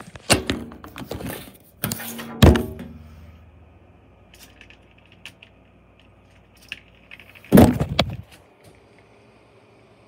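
Handling noise from the recording phone: a run of knocks and rustles with a heavy thump about two and a half seconds in, a few faint ticks, then another loud thump and rustle near eight seconds.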